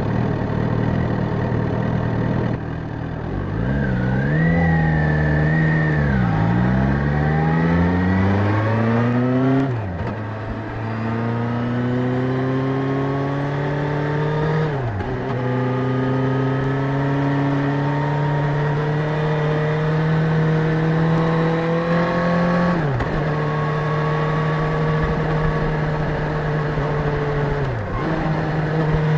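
Suzuki GSX-S1000's inline-four engine on the move. The revs rise and fall a few times, then climb and drop sharply at two upshifts. After that it holds a near-steady cruising pitch, with two brief dips as the throttle is rolled off and back on.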